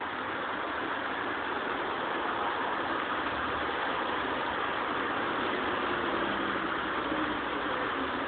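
Steady hiss of a street in rain, with a vehicle engine running underneath.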